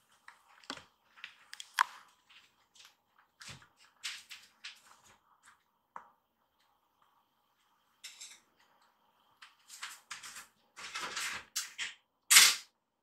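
Kittens scuffling at play: scattered light scratches, taps and rustles as a kitten paws and bites a slipper with a woven straw sole and scampers across the floor. Near the end comes a denser run of louder scuffing and rustling as it dashes at a fabric cat bed.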